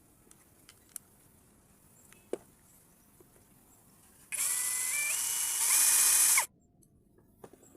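Small electric power-tool motor whirring for about two seconds, its whine stepping up in pitch and getting louder partway through, then stopping abruptly. A few light clicks of small parts being handled come before it.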